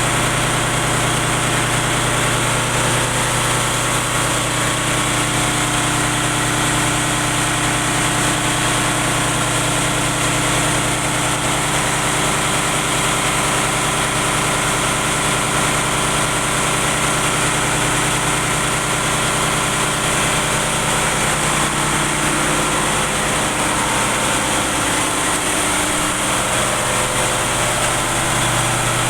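Diesel machinery in a ship's engine room running steadily: a loud, constant drone with a hum of several steady tones over a broad hiss.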